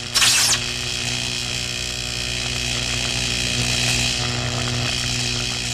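Electric arc sound effect: a loud zap about a quarter second in, then a steady electrical buzz with a low hum and a crackling hiss.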